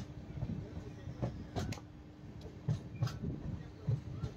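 Express passenger train running on the rails: a steady low rumble broken by irregular sharp clacks and knocks as the wheels cross rail joints.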